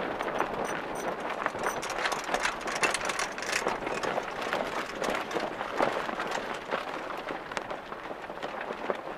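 Water rushing and splashing along a sailing yacht's hull as she sails through choppy water, with irregular small slaps of waves against the bow.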